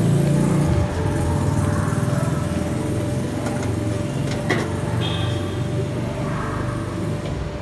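Motor-driven chestnut roaster running: a steady low motor drone under the rattle of small stones and chestnuts tumbling in the rotating pan.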